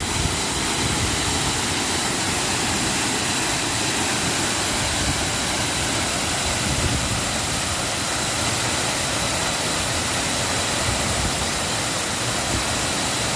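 Waterfall: falling water rushing in a steady, unchanging roar.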